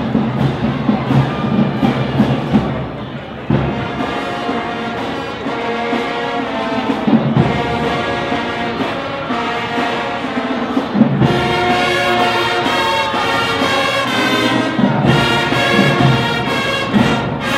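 HBCU marching band playing: drums carry the first few seconds, then the brass section comes in with held notes, getting fuller and louder past the middle.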